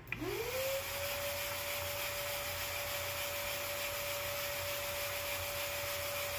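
Shop vacuum motor switched on: its whine climbs quickly in pitch, then holds steady over a loud rush of air.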